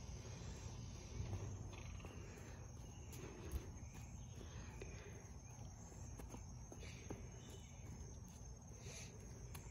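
Faint outdoor ambience: a child's soft footsteps on a concrete driveway, with a steady high insect hum behind.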